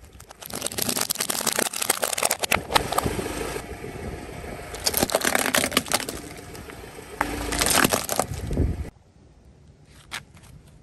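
Plastic toy tractor cracking and snapping as a car tyre rolls over it on asphalt: dense crackling in three loud spells. It stops suddenly near the end, leaving a couple of stray clicks.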